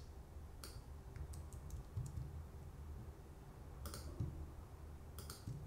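A few scattered faint clicks from a computer keyboard and mouse, coming in small groups over a faint steady low hum.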